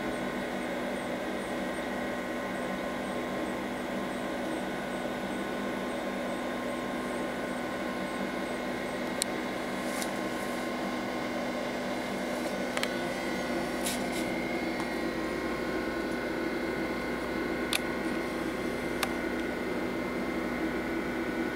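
IBM PC RT 6150 running with a steady fan hum and whine. From about nine seconds in, several sharp clicks sound at irregular intervals.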